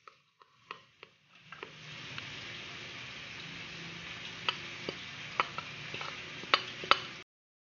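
A metal spoon clicking against a ceramic bowl while mixing, over a steady hiss that comes in about a second and a half in. Both cut off abruptly near the end.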